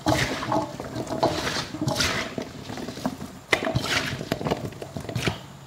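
Sliced fresh bamboo shoots being mixed by hand in a stainless steel bowl: an irregular rustle and clatter of the pieces, with sharp clicks as they knock against the bowl.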